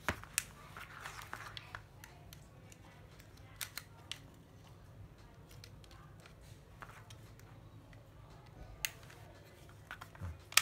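Scattered plastic clicks and knocks from handling a 12V cordless drill and its detached battery pack, over a faint low hum, with one sharper click just before the end.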